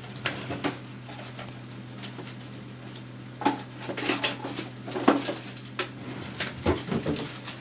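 Dishes and cutlery clattering as they are handled: a few sharp clinks early on, then a busier run of clinks and knocks from about three and a half seconds in, over a steady low hum.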